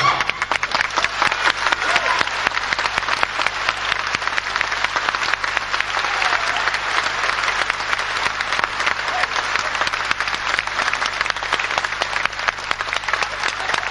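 A large concert audience applauding, a dense and steady clapping that fills the hall.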